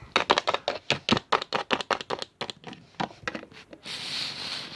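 Small plastic toy figures tapped quickly and unevenly on a hard surface as they are hopped along, then a short soft rustle near the end.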